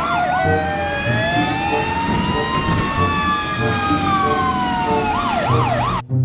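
Fire engine siren switching from a fast yelp to a slow rising-and-falling wail, with several siren tones overlapping, then back to the fast yelp before cutting off suddenly near the end.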